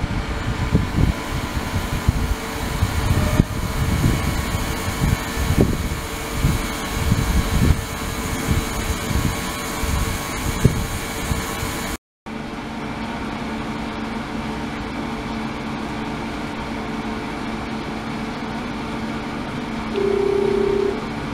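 Ultrasonic cleaning tank running, a steady machine hum with irregular low rumbling from the agitated, rippling liquid for about the first twelve seconds. After a brief break the hum goes on steadier with a low tone, and a short steady higher tone sounds near the end.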